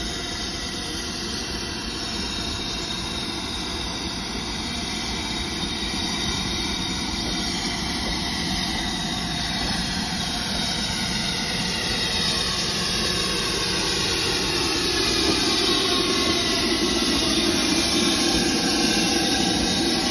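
BR Standard Class 7 Pacific steam locomotive 70000 Britannia running slowly into a station: a steady rumble and hiss that grows louder as it draws alongside, with a faint whine slowly falling in pitch in the second half.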